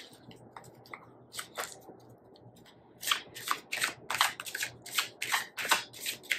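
A tarot deck being shuffled by hand, the cards slapping together in short, crisp strokes. The strokes are sparse at first, then from about halfway come steadily at about three a second.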